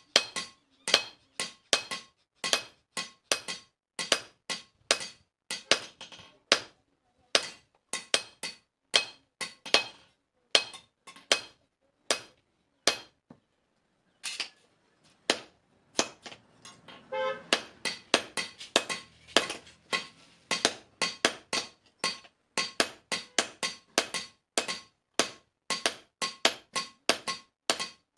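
Hammer blows on metal at an anvil while a spade blade is forged, about two to three strikes a second, each with a bright metallic ring. The strikes pause briefly near the middle, then resume faster.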